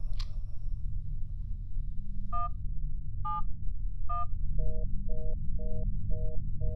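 Smartphone keypad tones: three separate two-pitch beeps as a number is dialled. They are followed by a fast run of short repeated beeps, about two a second, like an engaged tone, over a steady low hum.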